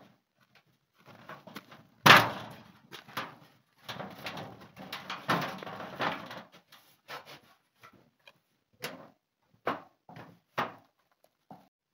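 Knocks and clatter of a timber frame fitted with a corrugated sheet being handled and shifted, with one loud bang about two seconds in and a longer rattling stretch a little later, then a few single knocks.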